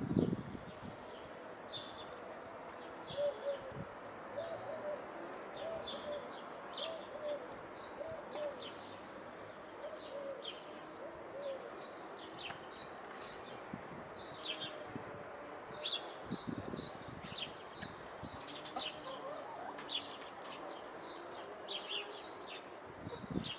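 Small birds chirping over and over, with a hen's soft low clucking from a few seconds in until about halfway. A few dull thumps, the loudest right at the start.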